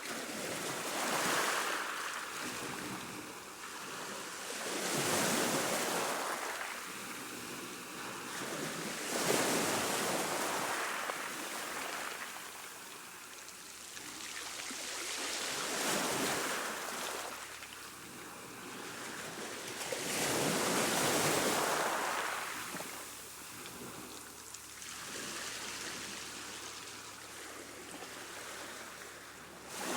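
Choppy sea water washing and splashing, surging in swells roughly every four to five seconds.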